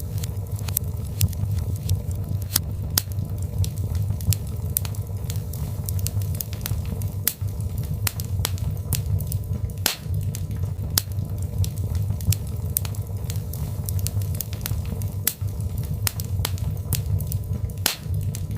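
Birchwood fire burning, with a steady low rumble and frequent sharp, irregular crackles and pops.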